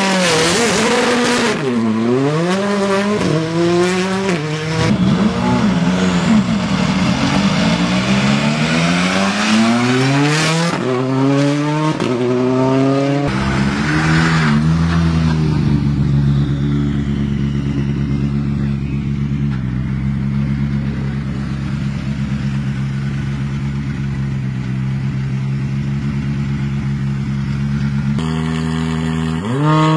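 Hyundai i20 R5 rally car's 1.6-litre turbocharged four-cylinder engine blipped up and down repeatedly, then settling to a steady idle about halfway through.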